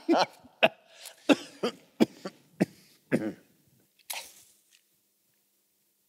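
A man's stifled laughter and coughing behind his fist: a string of short chuckling bursts that grow fainter and stop about five seconds in.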